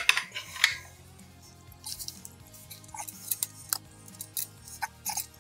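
Metal spanners clicking and scraping on the front wheel axle nuts of an electric scooter as they are worked loose: a few scattered, light metallic clicks.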